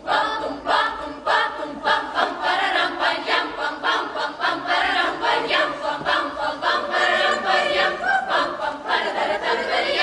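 Children's choir singing together, many young voices in quick, evenly paced syllables.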